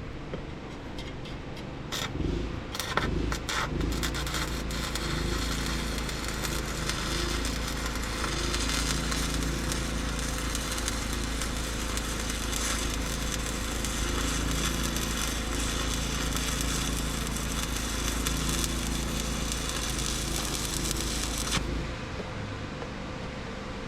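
Stick (arc) welder laying a bead: the arc strikes with a few sputtering pops, then runs as a steady crackling sizzle over a low hum, and breaks off suddenly near the end when the rod is pulled away.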